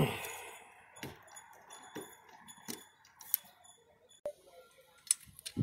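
Light metallic clicks and knocks of a Harley-Davidson Evolution 80 ci rocker box being worked loose by hand and lifted off the front cylinder head, with a louder knock right at the start and a sharp click a little past four seconds in.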